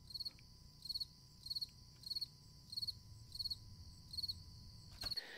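Crickets chirping in an even rhythm, about eight chirps at roughly one and a half a second, added as the comedic 'crickets' sound effect for an awkward silence. It cuts off abruptly near the end.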